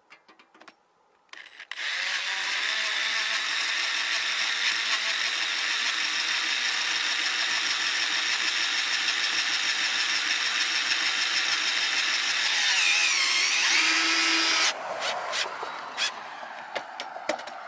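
Cordless drill running steadily with its bit against a corrugated steel roof panel. It starts about two seconds in, runs for about thirteen seconds with a high whine, wavers in pitch near the end and stops suddenly. A few light clicks follow.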